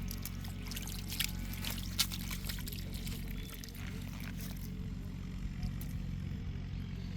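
Water pouring and trickling, with a couple of sharp splashes about one and two seconds in, over a steady low hum.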